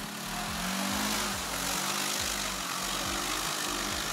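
Quad ATV engine revving and running, its pitch rising about half a second in. Electronic dance music with a steady kick drum, about two beats a second, plays under it.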